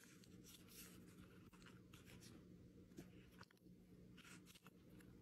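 Near silence: faint rustling and a few small clicks from hands handling a Louis Vuitton monogram canvas key holder and its snap flap, over a faint low hum.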